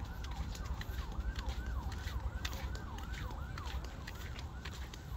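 A high squeaky chirp repeated two to three times a second, each one rising then falling in pitch, over scattered clicks like steps on a dirt path and a low rumble of wind on the microphone.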